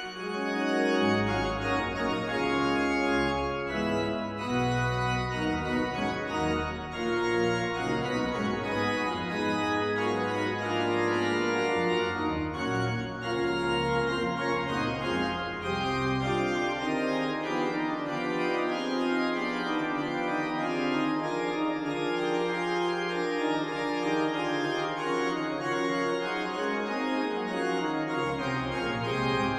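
Pipe organ playing sustained full chords. Deep pedal bass notes sound through the first half and drop away about halfway through, leaving the higher chords over a held lower note.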